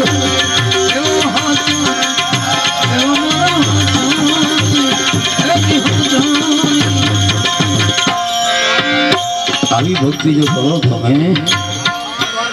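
Tabla playing a fast, dense rhythm, the low drum's pitch sliding up and down, over held harmonium notes: the instrumental accompaniment of a Gujarati bhajan.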